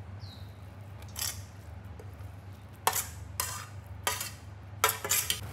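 Grated carrot being scraped off a dish into a stainless steel mixing bowl of flour: about six short scraping rasps of utensil on dish, over a low steady hum.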